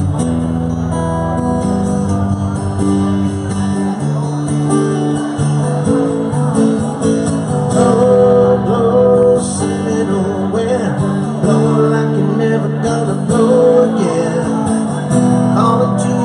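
Live band music: a strummed acoustic guitar with sustained instrumental notes and a steady light rhythm, played as an instrumental passage with no singing.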